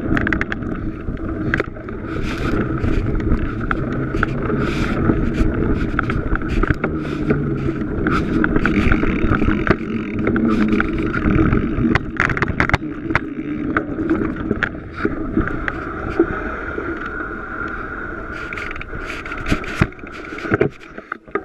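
Mountain bike riding fast over a dirt singletrack, heard from a camera mounted on the bike: a steady rumble of knobby tyres and wind on the microphone, with frequent clicks and knocks as the bike rattles over bumps and roots. It drops away near the end.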